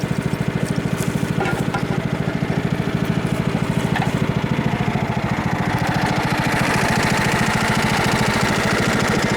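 Craftsman riding lawn mower engine running steadily under load while towing another riding mower, with even, rapid firing pulses. About six seconds in, a higher-pitched whine joins in and the engine gets slightly louder.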